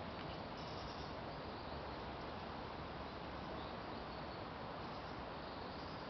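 A small stream running with a steady babble of water, with a few faint high bird chirps.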